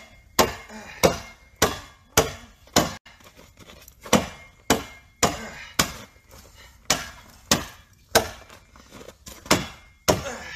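A long-handled tool chopping at the frozen surface of a swimming pool: a run of sharp strikes on ice, about two a second, with a short pause a few seconds in.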